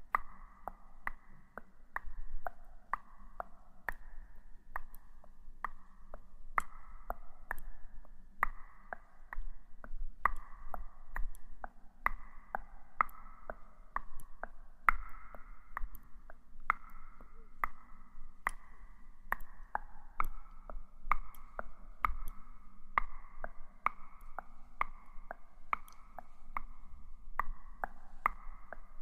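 Steady ticking, about two sharp clicks a second, over a soft ringing tone: a background sound effect with a clock-like beat.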